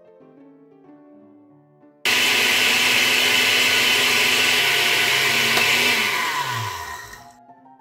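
Countertop blender switched on abruptly about two seconds in, grinding old-fashioned rolled oats into a coarse powder. It runs steadily for about four seconds, then is switched off and winds down with a falling pitch. Soft background music before it starts.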